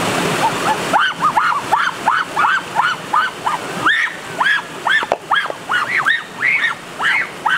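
A rapid, regular string of short animal calls, about three a second, each rising then falling in pitch. The rushing stream behind them drops away about a second in.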